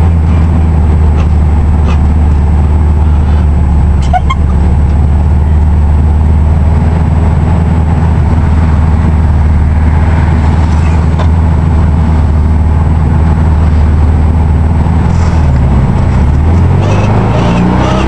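Cabin sound of a VW Beetle on the move: a steady low drone from the air-cooled flat-four engine and the road. Near the end the engine pitch dips and then climbs again.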